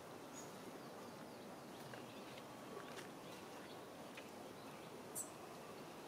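Faint steady outdoor background noise with scattered short, high chirps, and one sharper high squeak about five seconds in.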